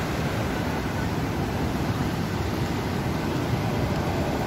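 Muddy floodwater of a river in flash flood rushing past in a steady, even noise.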